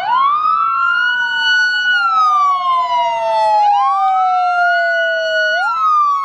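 Police car siren wailing, its pitch sweeping up and down in slow cycles of about three and a half seconds, with a second siren tone sliding slowly downward beneath it.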